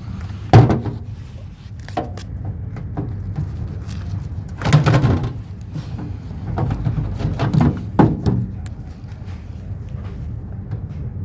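Knocks and clatter from handling and pulling apart a discarded microwave oven for scrap, with the sharpest knock about half a second in and a longer rattle near the middle.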